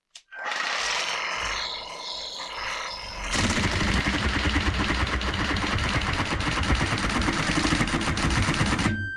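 Parkside PSTKA 12 A1 12-volt cordless jigsaw running on a low speed setting, starting about a third of a second in with a thin motor whine, then from about three seconds in getting louder and choppier as the blade cuts, until it stops near the end. On the lower settings it lacks power.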